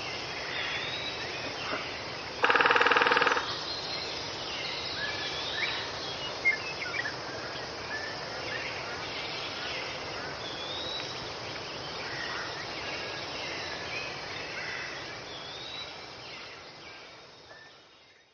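Tropical forest ambience: many short bird chirps and whistles over a steady background hiss of insects, with one loud call about two and a half seconds in lasting about a second. The whole fades out near the end.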